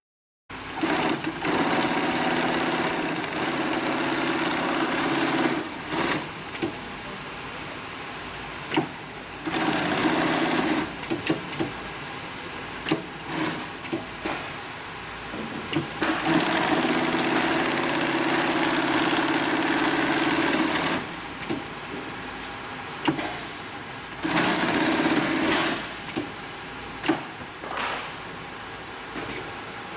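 Industrial big-bag (FIBC) sewing machine running in spurts as woven bag fabric is fed through it: two long runs of several seconds and two short runs of about a second and a half, with a quieter hum and scattered clicks of handling in between.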